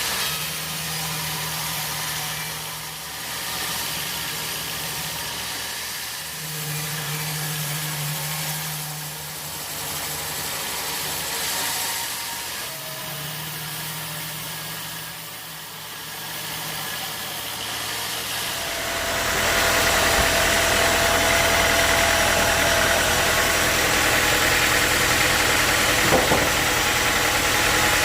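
Sawmill engine running at a low, uneven idle, then stepping up to a louder, steady, noisier run about two-thirds of the way through, with one short knock near the end.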